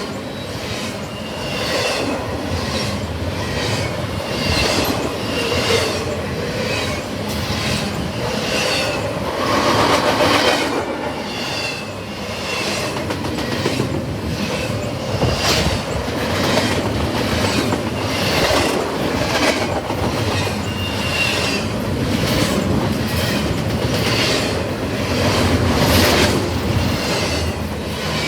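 Double-stack container freight cars rolling past, their wheels clicking over rail joints in a steady repeating rhythm over a constant rumble, with short high wheel squeals now and then.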